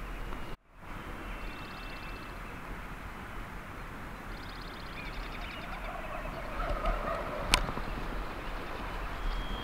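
Wild turkeys gobbling: two rattling gobbles in the first half, more calling later, and a single sharp click about three quarters of the way through.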